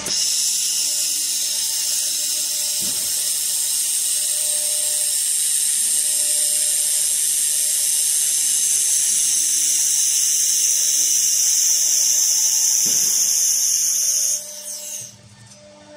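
Handheld fiber laser welder running a seam on sheet metal: a steady high-pitched hiss that cuts off suddenly about fourteen and a half seconds in as the weld ends, with a faint hum underneath.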